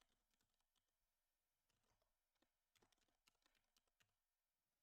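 Very faint computer keyboard typing: a scattering of soft keystrokes between about two and four seconds in, otherwise near silence.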